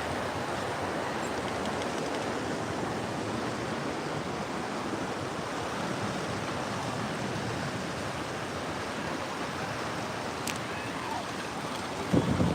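Ocean surf washing on the beach, a steady, even rush of water. A single sharp click about ten seconds in, and wind buffeting the microphone near the end.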